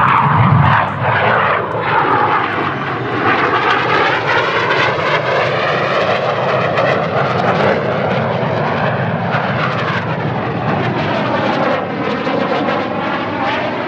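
Red Arrows BAE Hawk T1 jets flying past with a loud, steady jet roar. The tone sweeps down and back up as they pass, once early on and again about ten seconds in.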